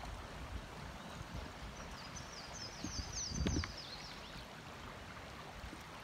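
Creek water running, with a songbird singing a quick run of high chirping notes for a couple of seconds in the middle and a low thump about three and a half seconds in.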